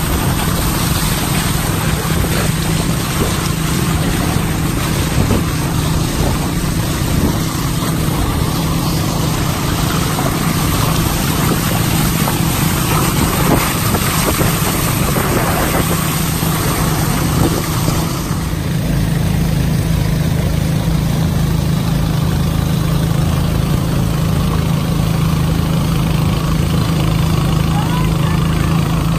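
Small motorboat's engine running steadily under way, a constant drone, with water rushing and splashing along the hull and wind noise. The sound shifts abruptly about eighteen seconds in.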